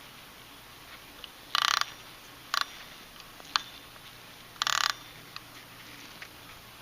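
Vintage mechanical alarm clock's alarm hammer rattling against its bell in two short bursts, about a second and a half in and again about three seconds later, with a shorter burst and a sharp click between them. Faint clicks run on underneath.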